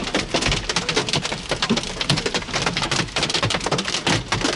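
Baseball-sized hailstones pounding a vehicle's roof and body in a dense, continuous clatter of hard impacts, heard from inside the cabin.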